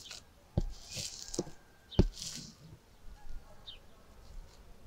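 Plastic cling film crinkling and rustling as hands roll a film-wrapped meat log against a table, with two dull thumps, about half a second and two seconds in.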